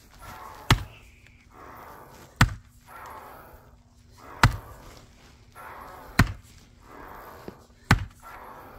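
Axe splitting a willow round: five sharp chops, one about every second and three-quarters, each a single hard strike of the blade into the wood.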